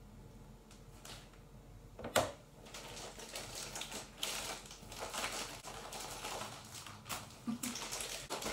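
Plastic zip-top bag crinkling and rustling as a chicken piece is shaken inside it to coat it in seasoned flour, with one sharp knock about two seconds in.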